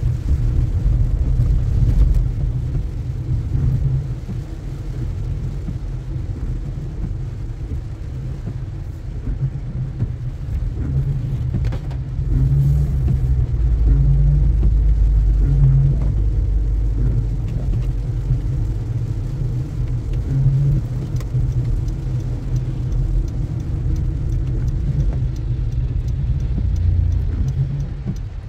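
Low road and engine rumble of a car being driven, heard from inside the cabin, swelling for a few seconds around the middle.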